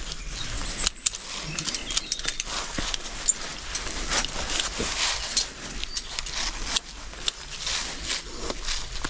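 Rope-access gear being handled: scattered clicks and clinks of metal hardware on a descender and rope, over a steady rustling of rope and clothing.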